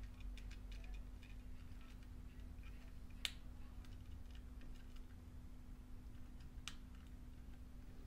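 Faint small handling ticks and clicks, with a sharper click about three seconds in and another near seven seconds, over a low steady hum: wires being connected to a 9-volt smoke alarm.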